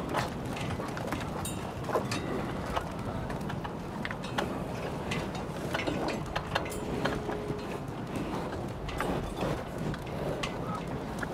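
Feedlot cattle feeding at a concrete bunk: scattered knocks and clicks of muzzles, ear tags and bodies against the feed trough and fence rails, over a steady outdoor rumble.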